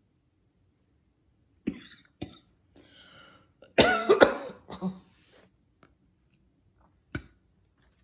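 A woman coughing: two short coughs, then a louder run of coughs about four seconds in, and one more short cough near the end.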